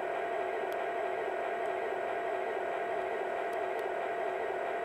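Steady diesel engine sound from the Lionel Chessie U30C's Proto-Sound 2.0 sound system, playing through the model's small speaker as an even hiss with a constant hum.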